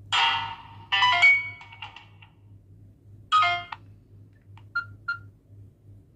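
Nokia 9300 Communicator's speaker playing one of its original ringtones: a short electronic tune in a few bursts of notes, one at the start, one about a second in and one about three seconds in. A few soft high pips follow around five seconds in.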